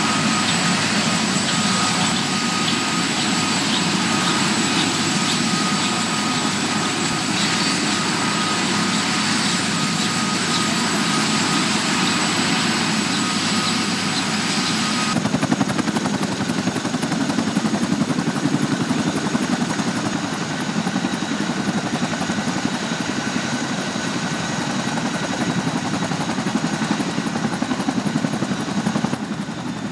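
CH-47 Chinook helicopter running on the ground, its rotors and turbine engines making a loud, steady din with a thin whine over it. The sound changes abruptly about halfway through.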